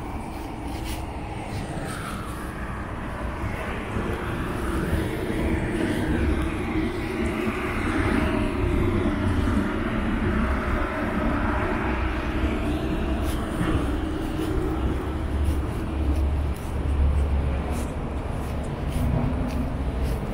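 A rushing engine noise swells over the first eight seconds or so and slowly fades again, over a steady low rumble of city traffic.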